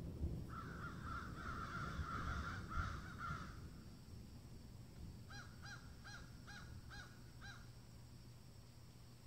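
A bird calling: a raspy call lasting about three seconds, then, about five seconds in, a run of seven short, evenly spaced calls, over a low rumble.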